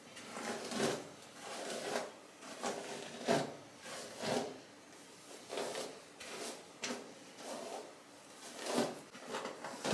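Hairbrush strokes: a paddle brush pulled through long hair over and over, a soft rasping swish about once a second.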